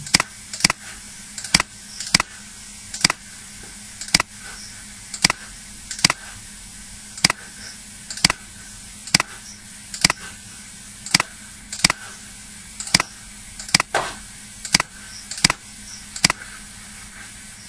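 Computer mouse clicking, short sharp clicks at an irregular pace of about one or two a second, some in quick pairs, over a faint steady hum.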